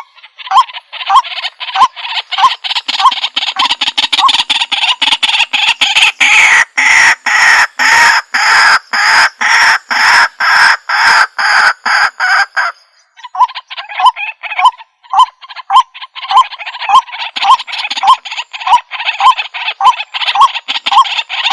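White-breasted waterhen calling, played back through a Bluetooth speaker. It gives a long run of harsh repeated notes at about two to three a second over a dense croaking chorus. The calls break off briefly about 13 seconds in, then start again.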